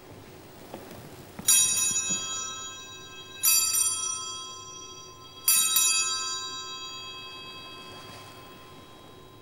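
Altar bell (Sanctus bell) rung three times, about two seconds apart, each ring a quick double shake of bright, high ringing that dies away slowly: the bell that marks the elevation of the Host at the consecration of the Mass.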